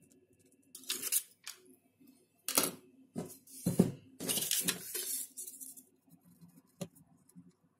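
Hands handling a wooden block on a wooden table: a few sharp knocks as the block is turned over and set down, then about a second of scratching and rustling as a pen traces around a paper template, and a single click near the end.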